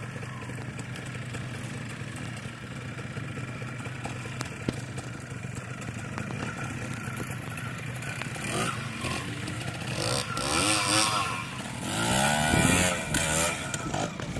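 Trials motorcycle engine running steadily at low revs, then revved several times in the last few seconds, its pitch rising and falling with each blip.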